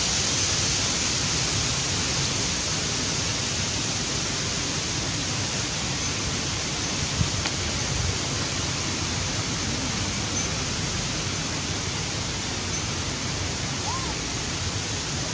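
Steady, even hiss with a single short click about seven seconds in.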